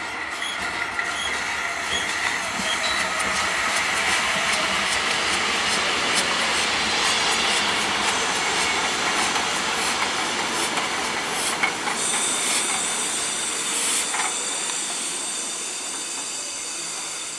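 Small steam tank locomotive Tubize 2069 slowly moving a train of passenger coaches past, with a steady hiss of steam and the wheels clicking over rail joints. From about twelve seconds in, the wheels squeal high.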